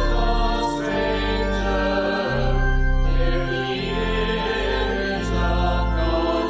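Hymn sung by a choir with instrumental accompaniment: long held chords over a deep bass, the voices wavering slightly above.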